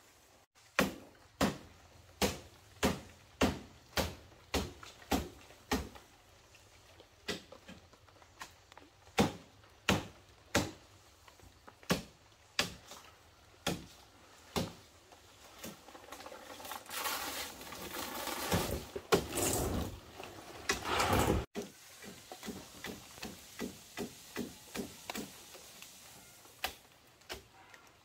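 A blade chopping palm leaves, sharp strokes repeating a little faster than once a second. Then a rustling noise swells for about five seconds and stops suddenly, followed by lighter, quicker taps.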